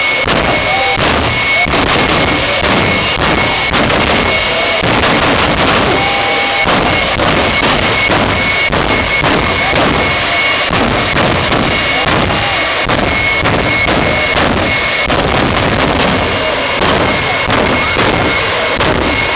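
Jet turbine engines of a jet-powered show semi truck running hard with a steady high whine, broken by many irregular cracks and bangs as flames shoot from the exhaust stacks on its cab.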